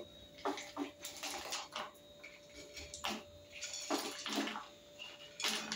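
Ice cubes sliding off a plate and dropping into a full pitcher of blended fruit drink: a series of irregular splashes and clinks.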